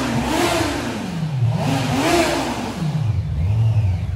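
Kawasaki Z900 inline-four on its stock exhaust, revved up and let back down twice, then settling to a steady low running note near the end. It echoes off the walls of a concrete underpass.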